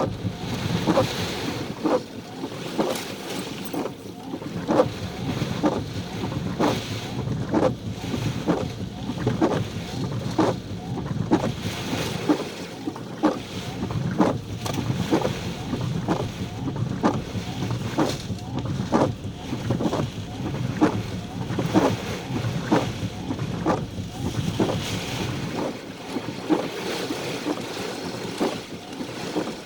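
Severe thunderstorm wind and rain buffeting the microphone, a steady rushing noise broken by frequent irregular knocks and taps.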